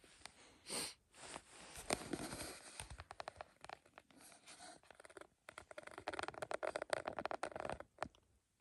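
Close rustling and scraping handling noise, with a dense stretch of crackling in the second half that stops shortly before the end.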